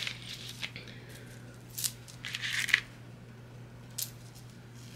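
Beaded bracelets clicking and clattering as they are handled and dropped into a sheer organza bag: a sharp click about two seconds in, a short rattle of beads just after, and another click near the end.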